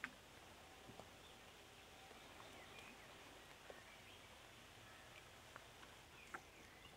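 Near silence: faint outdoor ambience with a few faint, short chirps and several small clicks.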